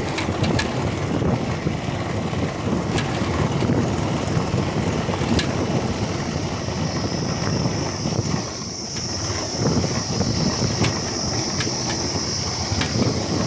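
Motorcycle running while riding along, with a steady, uneven rumble of engine and wind noise; a thin, steady high hiss joins about halfway through.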